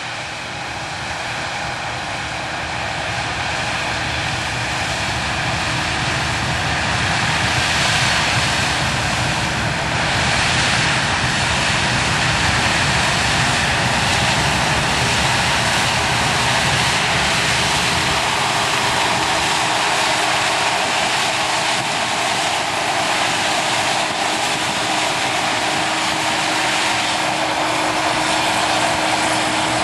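Combine harvester running while harvesting corn: a steady, dense mechanical drone that grows louder over the first several seconds and then holds level.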